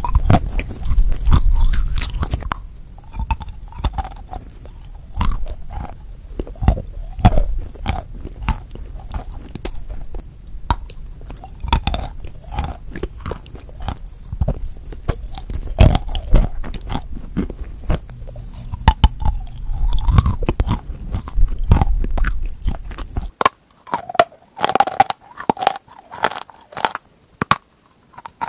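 Close-miked biting and chewing of edible chalk: repeated sharp, dry crunches as the chalk snaps and grinds between the teeth. A low background rumble under the crunching stops abruptly near the end.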